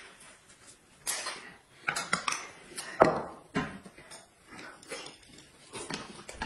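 Eating at the table: irregular slurps and sips from spoons, with light clinks of utensils against dishes and a cup, a sound every second or so.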